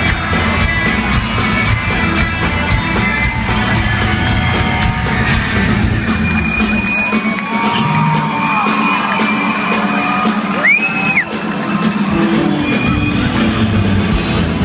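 A live rock band playing on a steady beat in a concert hall, recorded from the audience, with people in the crowd whooping and shouting over the music. The bass thins out for a few seconds midway, and a couple of loud whoops stand out near the middle.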